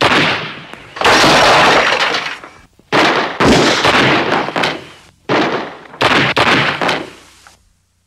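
Movie shootout sound effects: gunshots and breaking, shattering glass, about six loud sudden crashes, the longest one ringing on for nearly two seconds.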